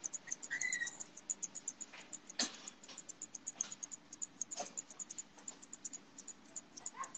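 Grooming scissors snipping in quick, even succession, about six short, sharp snips a second, with two louder clicks along the way.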